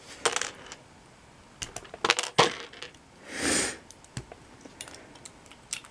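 Small plastic LEGO pieces being handled and snapped together, giving scattered light clicks and clatter, with a quick run of sharp clicks about two seconds in and a short hiss about halfway through.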